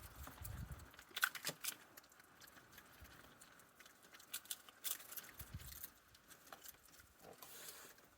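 Raccoons moving and feeding on a deck: faint, scattered clicks and taps from paws and food, a few sharper taps about a second in and near the middle.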